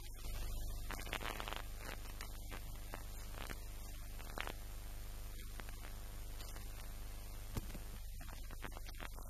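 A steady low hum with scattered faint clicks and one sharp tick about seven and a half seconds in.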